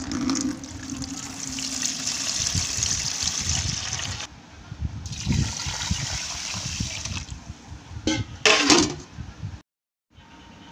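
Water pouring in a steady stream, first drained from a steel vessel into a plastic bucket, then poured onto soaking rice and dal in a steel pot after a short pause. Near the end come a few loud knocks, then the sound cuts off abruptly.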